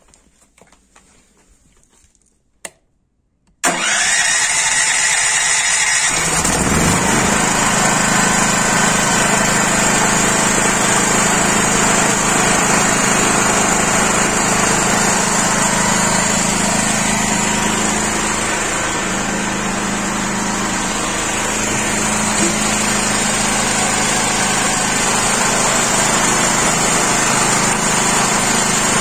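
A few faint clicks, then the Blackstone BG 11050-FullPower ES generator's 457 cc four-stroke petrol engine is cranked by its electric starter for about two seconds, catches, and runs at a steady speed.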